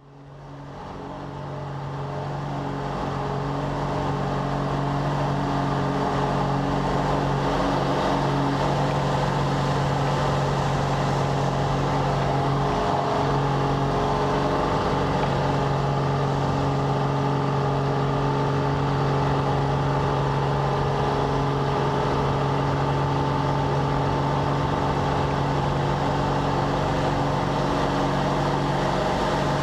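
Slick 540 aerobatic aircraft's six-cylinder Lycoming engine and propeller heard from inside the cockpit, running steadily at high power. The sound fades in over the first few seconds, then holds an even drone.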